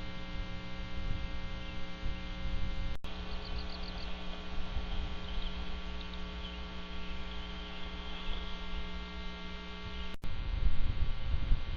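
Steady electrical mains hum with a low rumbling noise underneath, picked up by a wildlife nest camera's microphone. It breaks off for an instant twice, at about three seconds and about ten seconds, and a few faint high chirps sound just after the first break.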